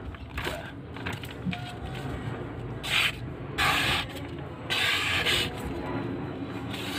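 Sheets of paper rustling and being sliced by the freshly honed edge of a steel golok (machete), a test of its sharpness. There are two longer hissing cuts about three and five seconds in.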